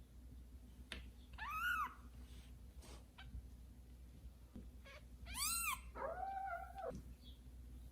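Newborn kitten mewing: two short, high cries that rise and fall, then a longer, lower cry near the end.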